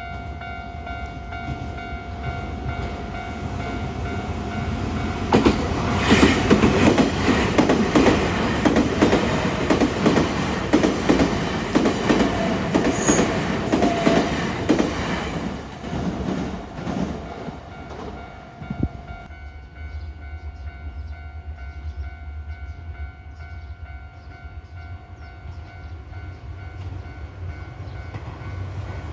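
Level crossing alarm ringing as a steady electronic tone while an electric train passes over the crossing. Its wheels clatter over the rail joints for about ten seconds, loudest in the middle. The alarm stops a few seconds after the train has passed.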